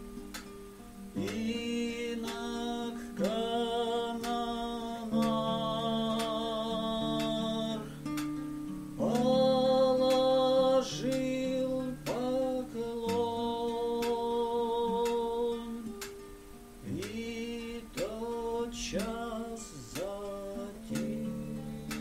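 A man singing a slow song, in phrases of long held notes with vibrato, accompanying himself on a classical acoustic guitar.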